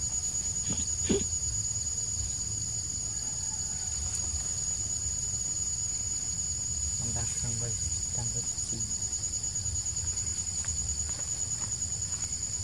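Steady, high-pitched chorus of forest insects, cicadas or crickets, shrilling without a break.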